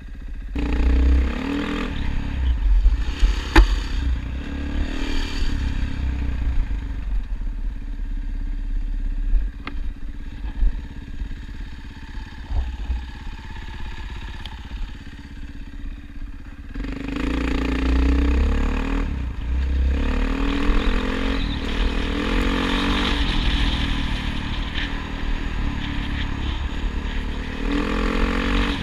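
A vehicle engine running with revs rising and falling, with clatter. It eases off through the middle and picks up again a little past halfway.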